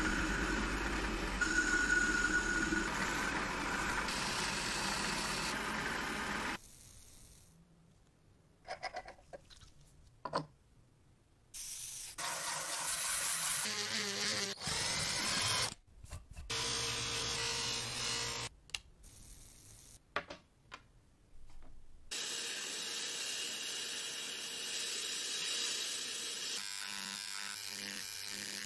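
A series of short power-tool sounds on metal, with quieter gaps and clicks between them. First, and loudest, a lathe tool cuts a domed steel part. Later a rotary tool's sanding drum grinds a steel bracket, and near the end an electric engraving pen buzzes as it marks the cast-iron vise body.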